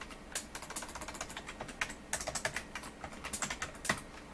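Typing on a computer keyboard: quick, irregular runs of key clicks with short pauses between them, and one harder keystroke near the end.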